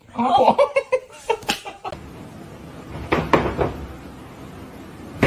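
A person laughing in a quick run of short bursts for about the first two seconds, with a few fainter bursts of laughter about three seconds in.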